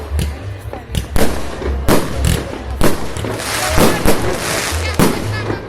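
Fireworks salute: a series of loud bangs from shells bursting overhead, roughly one a second, with a stretch of dense crackling a little past the middle.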